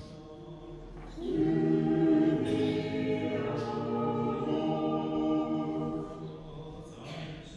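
Small a cappella choir singing a short Orthodox liturgical response in harmony, starting about a second in and dying away about six seconds in.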